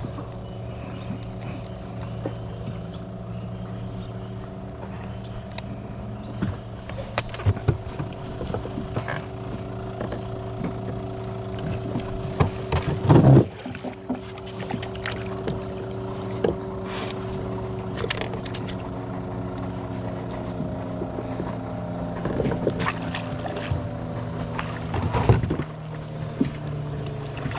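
A boat motor running steadily, its pitch sinking a little near the end, with scattered knocks and clicks, two of them louder about halfway and near the end.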